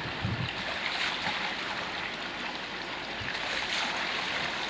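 Water running steadily from a pipe and splashing as a person washes under it.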